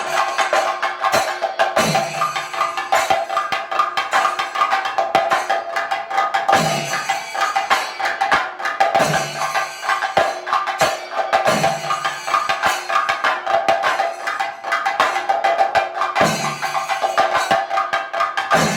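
Thayambaka: chenda drums played fast with sticks, dense rapid strokes over steadily ringing ilathalam hand cymbals, with a deep drum stroke falling in pitch about every two and a half seconds.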